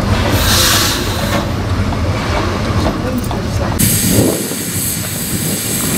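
Steam Motor Coach No. 1 'Coffee Pot', a small steam railcar, working on the track with a steady low rumble. A burst of steam hiss comes about half a second in, and a brighter, harsher hiss from about four seconds in.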